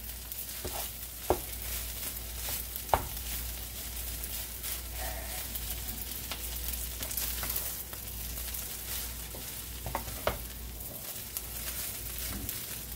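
Cooked rice frying in olive oil in a metal pan, a steady sizzle, as a wooden spatula stirs and scrapes through it, knocking sharply against the pan a few times.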